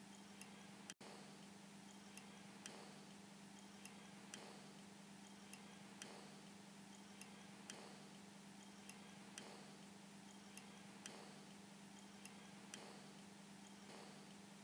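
Near silence: faint, light clicks in pairs about half a second apart, the pairs repeating at a steady, even pace, over a low steady hum.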